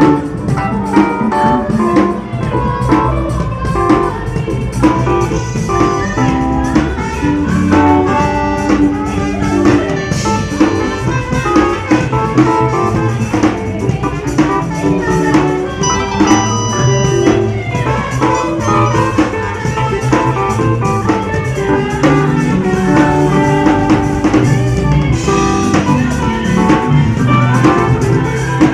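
Live gospel music from a mass choir and band, with a drum kit and guitar keeping a steady beat.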